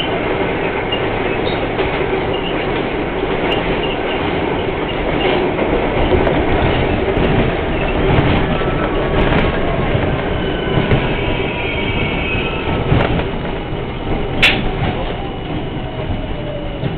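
R42 subway train running on elevated track, heard from inside the front car: steady rumble with wheels clicking over rail joints and squealing. A whine falls in pitch as the train slows along the station platform, and there is one sharp crack about fourteen seconds in.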